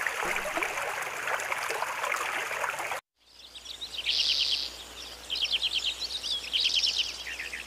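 A thin stream of water pouring and splashing onto a large elephant-ear leaf; after a sudden cut, a bird sings in several quick trilled bursts of rapid high notes.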